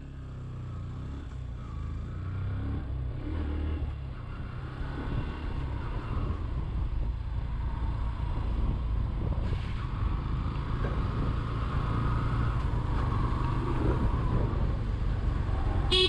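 Yamaha 150 cc motorcycle's single-cylinder engine running as the bike pulls away and gathers speed down the road. It gets steadily louder, with wind and road noise rising along with it.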